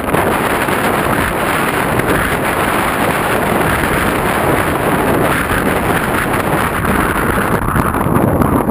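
Loud, steady wind rushing over the microphone of a handlebar-mounted GoPro Hero 2 on a moving bicycle.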